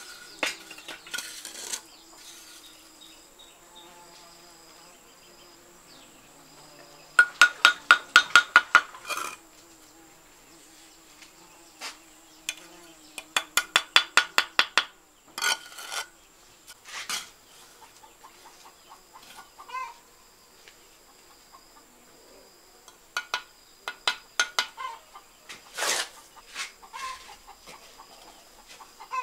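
Bricklayer's trowel tapping fired clay bricks down into fresh mortar: two quick runs of sharp knocks, about four or five a second, and scattered single taps. A steady high insect drone runs underneath.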